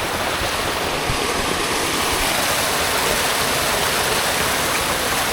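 Mountain stream running steadily, a dense, even rush of flowing water.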